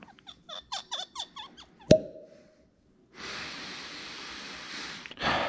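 Cork stopper of a Westward single malt whiskey bottle squeaking as it is twisted out of the glass neck, a quick run of short squeaks ending in a sharp pop with a brief ring about two seconds in. Then a long steady sniff at the open bottle, and a second, louder one near the end.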